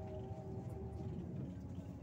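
Volzhanin-6270 city bus heard from inside the passenger cabin while driving: a steady low engine and road rumble with a few faint, steady whining tones above it.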